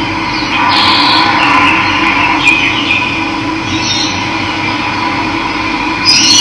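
Steady rush of running water with birds calling over it, several short high calls at intervals.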